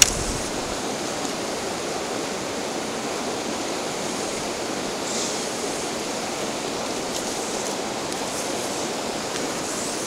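Mountain stream rushing steadily over rocks and small cascades, with a short click right at the start.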